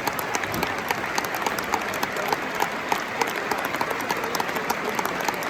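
Large stadium crowd applauding steadily, dense clapping welcoming the teams onto the pitch.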